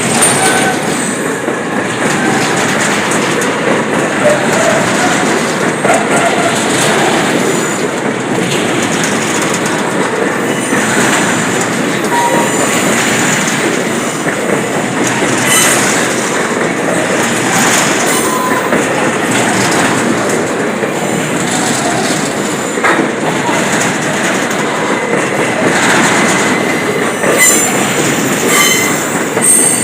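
A train rolling past at close range with a steady rumble of wheels on rail. Its wheels clack over rail joints and give short, scattered squeals.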